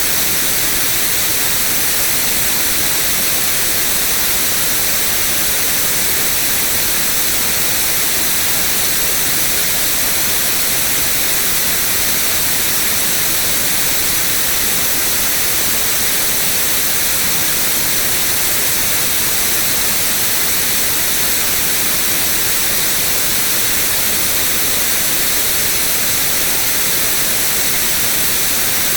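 Synthetic white noise: a steady, even hiss that never changes.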